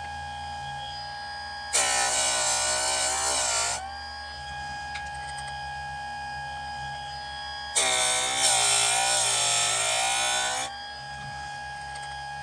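Electric chainsaw sharpener's motor running with a steady whine, its grinding wheel brought down on a chain tooth twice: each grind, about two to three seconds long, adds a harsh loud rasp and pulls the motor's pitch down under load.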